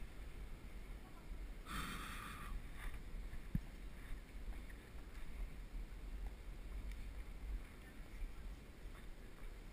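Steady low rumble of wind on a helmet camera while cycling over cobblestones. A brief high-pitched ringing sound comes about two seconds in, and a single sharp knock about a second later.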